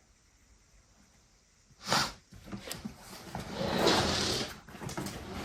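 Handling noises from a suitcase's plastic wheel-hub assembly being moved by hand: a sharp knock about two seconds in, then a couple of seconds of scraping and rustling with scattered clicks.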